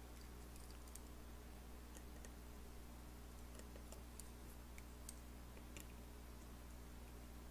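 Faint, irregular small clicks of a precision screwdriver and tweezers on the screws and metal brackets of an opened iPhone 6, over a steady low hum.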